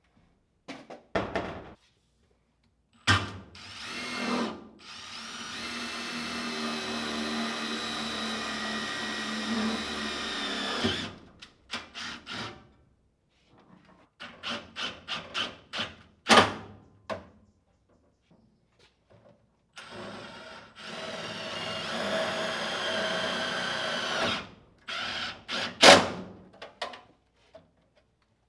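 Cordless drill running steadily in two long runs, about seven seconds and then about four seconds, while a breaker panel is fastened to the wall. Sharp knocks and clicks come between the runs.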